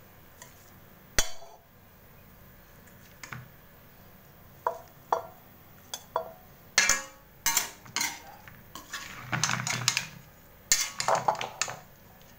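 A metal ladle clinking and scraping against a wide metal pan while lifting pieces of fried fish out of vegetables: a string of separate sharp clinks, then two denser bursts of scraping and clattering near the end.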